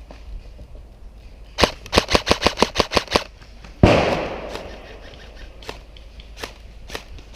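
Airsoft gun firing a rapid string of about a dozen shots in under two seconds, followed by a single louder bang with a hissing tail that fades over about a second. A few scattered single shots come after.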